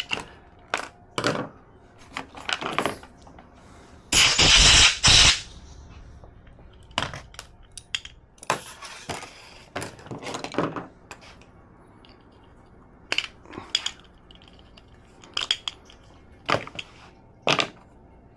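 Scattered small clicks and knocks of carburetor parts and tools being handled on a bench, with one loud rushing burst about four seconds in that lasts a little over a second.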